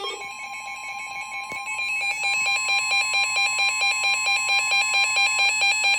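Emergency Alert System attention signal: a loud, steady two-tone alarm that announces an emergency alert broadcast, with a faint click about a second and a half in.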